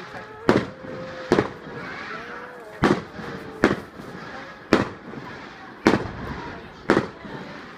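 Fireworks display: seven sharp bangs of aerial shells bursting, roughly one a second, over a steady crackling hiss.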